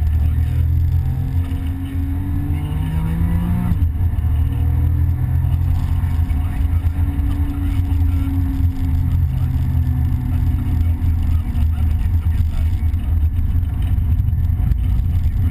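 Porsche 911 Carrera GTS's 3.8-litre flat-six heard from inside the cabin, pulling hard under acceleration. Its pitch climbs, drops suddenly at a PDK upshift about four seconds in, then rises again more slowly, over a heavy low rumble.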